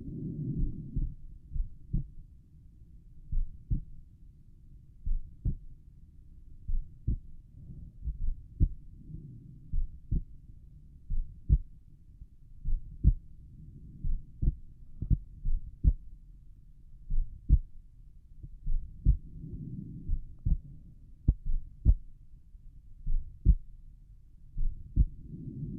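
Heartbeat heard over the pulmonic valve area of the chest: slow, regular paired lub-dub beats, about one pair every one and a half seconds, with a low rushing swell coming and going every five seconds or so.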